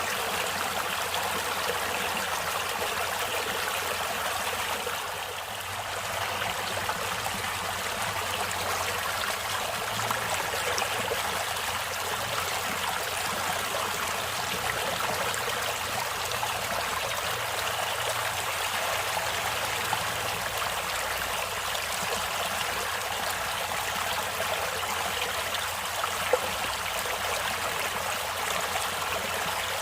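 Stream water running and splashing over rocks in a steady rush, with a brief lull about five seconds in.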